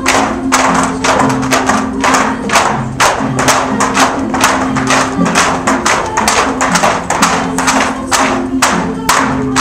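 Bamboo poles knocked together and struck on the floor in a steady rhythm, about three to four knocks a second, for a pole-jumping dance, over music with a melody in low notes.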